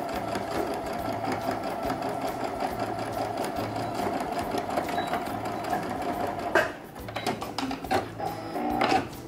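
Electric home sewing machine with a zipper foot stitching a zipper onto fabric, running steadily for about six and a half seconds and then stopping. A few sharp clicks follow, with a short burst of stitching near the end.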